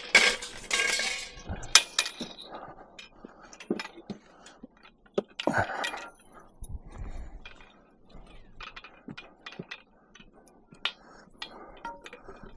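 Scrap metal clinking and clanking as pieces are handled and loaded onto a pile: a loud clatter at the start, then scattered knocks and clinks.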